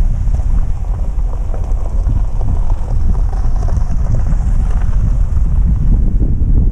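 Wind buffeting the microphone of a hood-mounted camera on a vehicle driving along a gravel road, a loud steady low rumble.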